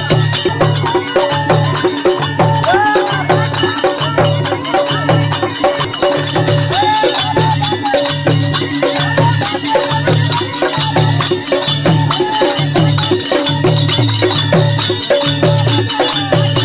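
Rajasthani folk music from gypsy singers: a voice singing bending melodic lines over a steady, repeating drum beat and constant rattling, jingling percussion.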